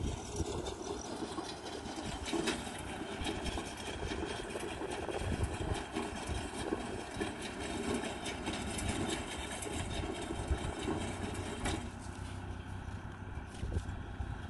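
Kubota tractor's diesel engine running steadily as it pulls a round straw baler across the field.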